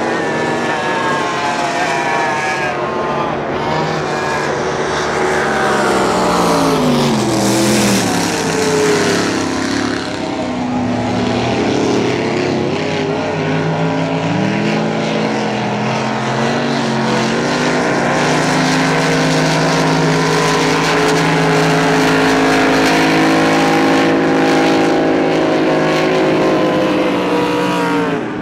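Outboard engines of race boats running hard, several at once; the pitch drops steeply as boats pass about 4 to 9 seconds in, then the engines hold a steady drone that slowly rises before falling away at the very end.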